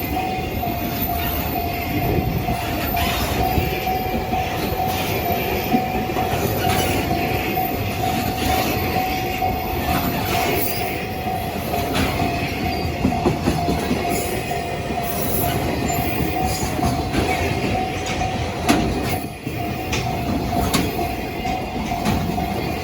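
A freight train rolling past at close range, its wheels clicking sharply over the rail joints, with a level-crossing warning bell sounding a steady high tone over it.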